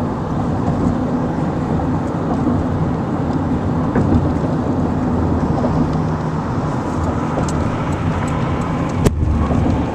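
Steady road noise of a car driving at speed, a dense low rumble from engine and tyres, with one sharp click about nine seconds in.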